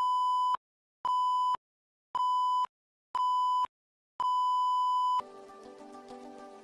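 Countdown beeps: four short electronic beeps at one a second, then a fifth held for about a second, all on the same steady high tone. Quieter background music with sustained chord notes starts right after the last beep.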